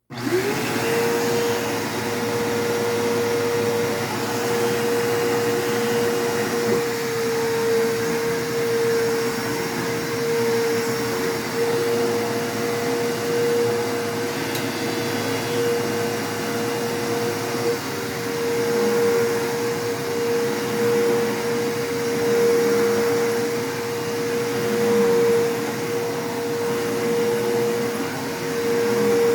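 Bissell Powerforce Bagged 3522-6 upright vacuum cleaner switched on, its motor spinning up within a moment to a steady whine and then running steadily with a rushing airflow hiss.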